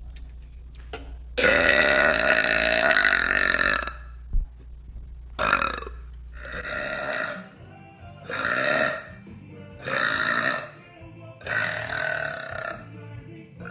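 A young woman burping after drinking soda: one long, loud burp starting about a second and a half in and lasting over two seconds, then a string of shorter burps about every second and a half.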